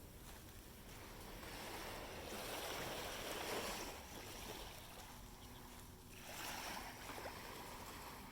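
Small sea waves washing onto a sandy beach, the hiss of the surf swelling twice, about three seconds in and again near six and a half seconds.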